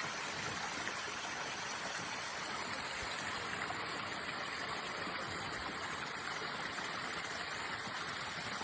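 A small brook babbling: a steady, even rush of running water.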